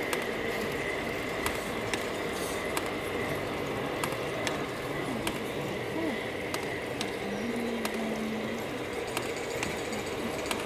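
Large-scale garden model train running on outdoor track: a steady whine from its motor and gears, with light clicks of the wheels over the rail joints about every half second.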